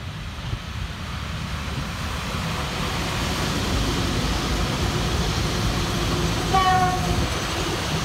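VL11 electric locomotive and its train of tank cars passing close by: a loud rushing of wheels on rail and running gear that builds over the first few seconds, then holds steady. About six and a half seconds in, a short high tone sounds briefly over it.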